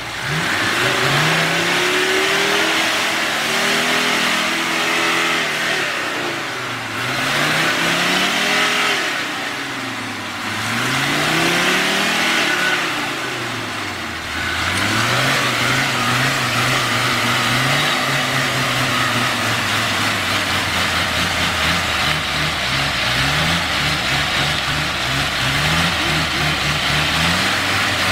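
Off-road vehicle engine revving up and down several times under load, then holding steadier revs. In the last several seconds the engine note wavers quickly up and down. A steady rushing noise from the driving runs underneath.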